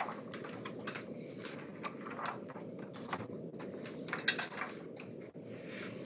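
Scattered light clicks and knocks of people getting up from office chairs and moving around a conference table, over a steady low background noise, heard through a Shure MXA710 linear microphone array as far-end Zoom audio.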